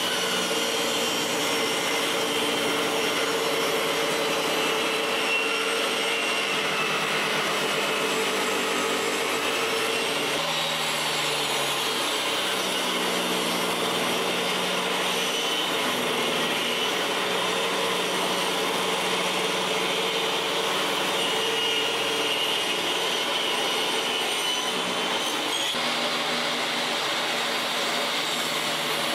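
DeWalt jobsite table saw running and cutting chestnut boards fed through on edge: a steady, loud motor-and-blade noise whose note shifts a couple of times as the board is pushed through the blade.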